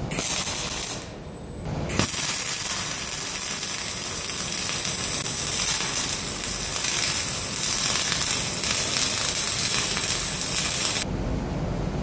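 TIG welding arc on 1/8-inch stainless steel plate, fusing the joint without filler rod: a steady crackling hiss. The arc burns briefly at the start, goes out for about a second, then runs steadily for about nine seconds and cuts off near the end.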